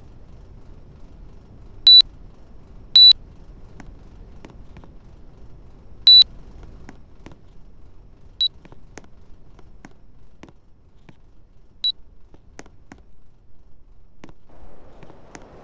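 Air conditioner's control panel beeping: five short, high beeps, the first three louder and a little longer, with faint clicks between them.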